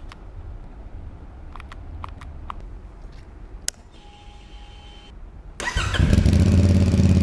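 CFMoto motorcycle engine starting: after a few faint clicks and a brief electronic tone, the starter cranks about five and a half seconds in and the engine catches at once, settling into a loud, steady idle.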